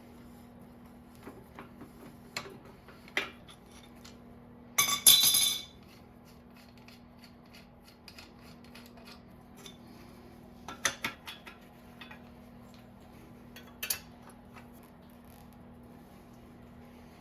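Metal tools and bicycle parts clinking and clattering during teardown of the crankset and bottom bracket, with a louder clatter about five seconds in and short bursts of clinks near eleven and fourteen seconds. A faint steady low hum runs underneath.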